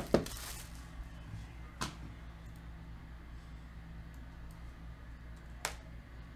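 A cardboard trading-card box being handled on a table: a sharp knock right at the start, then two softer clicks about two and five and a half seconds in, over a steady low hum.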